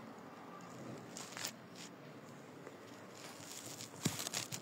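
Quiet room tone during a pause in talk, with a faint breath about a second in and a stronger, short breath near the end.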